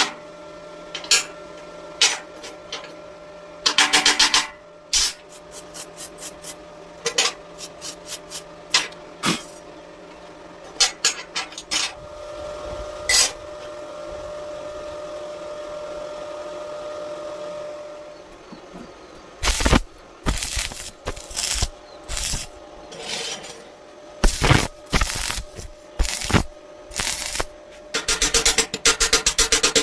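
Metalwork at a welding bench: runs of sharp metallic clicks and taps, some in quick bursts, with a steady hum for several seconds around the middle.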